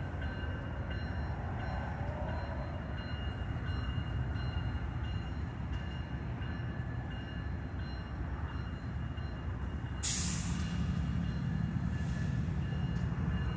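Freight train's diesel locomotives running with a steady low rumble and faint whining tones. About ten seconds in comes a sudden sharp hiss of air as the locomotive brakes are released, and the low rumble grows louder after it.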